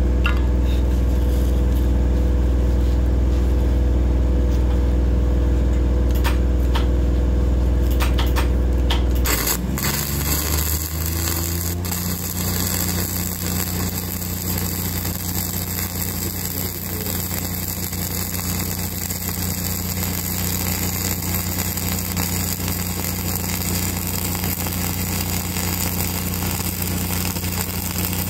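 A welding machine's engine runs with a steady low hum, then shifts up in speed about a third of the way in as the arc is struck. From then on a self-shielded flux-cored arc (NR-233, 5/64-inch wire) crackles and sizzles steadily over the engine.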